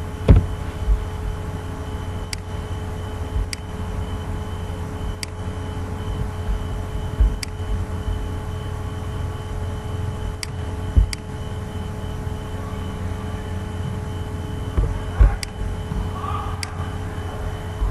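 A steady low hum and hiss from the recording microphone, with about nine isolated sharp clicks scattered through it, a second or more apart: computer mouse clicks.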